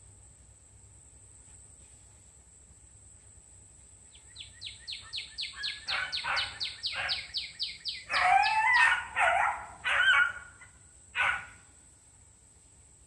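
Animal calls: a rapid run of high, falling chirps, about eight a second, starts about four seconds in and grows louder. It turns into louder, bending calls about eight to ten seconds in, with one last call near eleven seconds.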